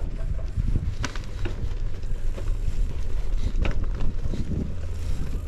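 Wind rumbling on the microphone, with a few scattered clicks and knocks.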